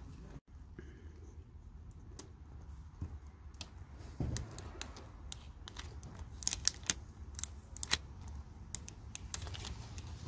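Vinyl decal application tape being rubbed down and peeled off a van's window glass: irregular crackling and sharp ticks, thickest around the middle.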